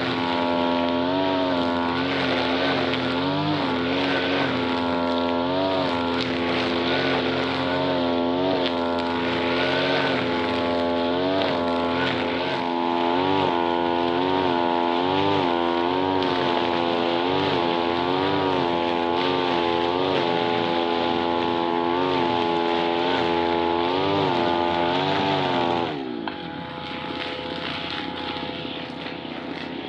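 Small brush-cutter engine running at high revs, its pitch wavering up and down about once a second as the throttle is worked. About 26 seconds in, the revs drop sharply and it settles lower.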